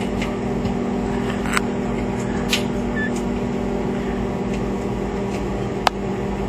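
Microwave oven running with a steady hum, with a few sharp clicks about one and a half, two and a half and six seconds in.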